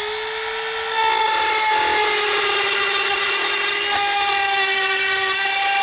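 Dremel rotary tool running at high speed with a steady high-pitched whine, its pitch sagging slightly as it cuts to trim the edge of the radio cut-out in the dash.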